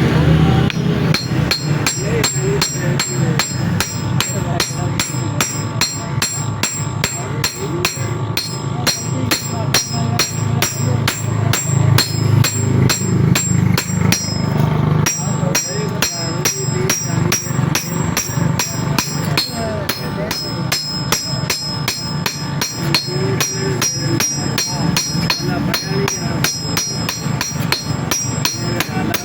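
A hand hammer striking metal in a steady, fast rhythm of about three or four blows a second, each blow with a short ring.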